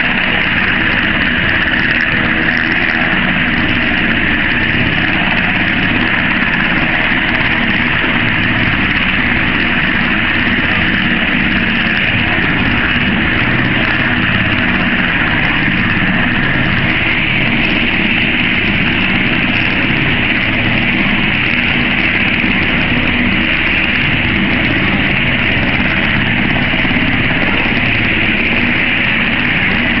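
MH-60 Jayhawk helicopter in flight, heard from inside the cabin: a steady, unchanging drone of the turbine engines and rotor with a strong hiss over it.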